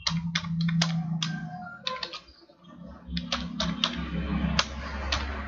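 Laptop keyboard keys clicking in irregular keystrokes as a line of code is typed, with a short pause about two seconds in. A steady low hum of background noise runs underneath.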